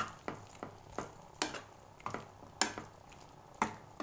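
Steel spoon knocking and scraping against a nonstick frying pan while stirring a thick onion, tomato and turnip masala to mix in red chilli powder and turmeric. Uneven sharp clicks come about two or three a second.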